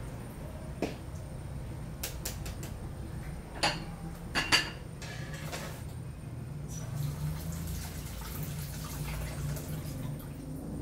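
Clinks and knocks of a stainless steel bowl and ladle being handled at a kitchen counter. The loudest are a few clatters about four seconds in, with lighter clicks before and after, over a steady low hum.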